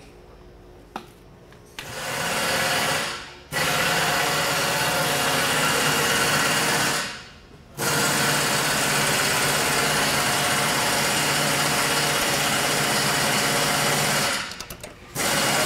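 A few light metallic clicks, then a loud, steady machine noise that starts about two seconds in and keeps running. It dies away twice, after about a second and again after about four seconds, and each time starts straight back up; a short break with clicks comes near the end.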